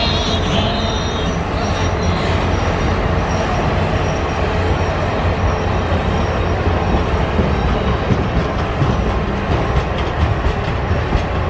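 Railcars of a passing train rolling by close, with a loud steady rumble of steel wheels on the rails. A brief high wheel squeal comes at the start, and scattered wheel clicks over the rail joints come in the later seconds.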